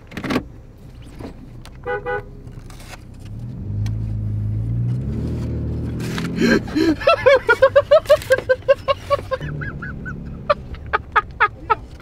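Toyota's engine revving as the vehicle pulls away, with its horn honked in a rapid string of short toots, about five a second. There is also a single short toot about two seconds in.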